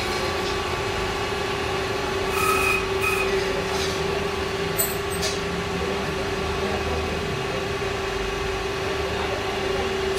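Metal lathe running: its motor comes up to speed at the very start and holds a steady whine. A brief higher-pitched squeal sounds about two and a half seconds in, and a few light clicks follow a couple of seconds later.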